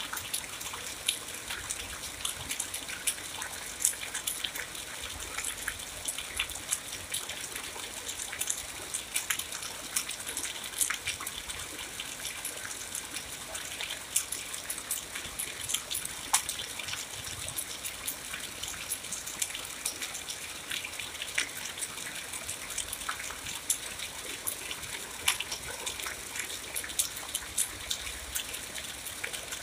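Steady rain falling, a constant hiss thick with close, crisp drop hits.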